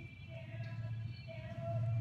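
Faint music with long held notes over a low steady hum.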